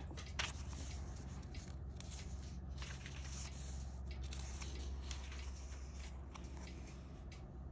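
Pages of a thin paper planner insert being turned and pressed flat by hand: faint soft paper rustles and light brushing, over a low steady hum.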